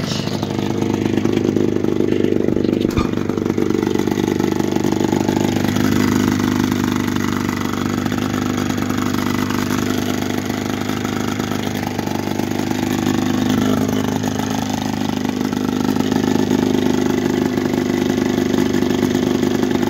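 1980 Evinrude 15 hp two-cylinder two-stroke outboard motor running steadily, still warming up after a cold start. It runs out of the water, cooled by a garden hose on flush muffs over the lower unit's water intake.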